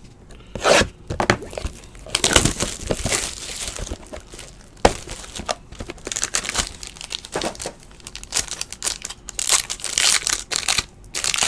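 Clear plastic wrapping on a 2016 Panini Gala Football trading-card box being crinkled and torn open by hand, in irregular rustling bursts with a few sharp clicks.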